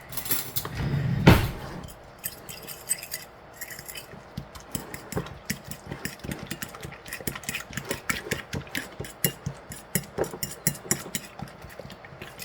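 A kitchen utensil clicking and tapping against a dish over and over, several times a second and unevenly, with one louder knock about a second in.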